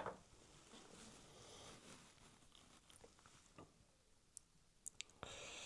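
Near silence with faint handling noises: a sharp click at the start, then light rustles and a few small ticks of small model-locomotive drive parts being handled.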